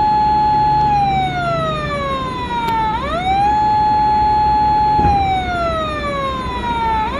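Police car siren wailing: each cycle jumps quickly up to a high note, holds it for about a second, then glides slowly down, repeating about every four seconds.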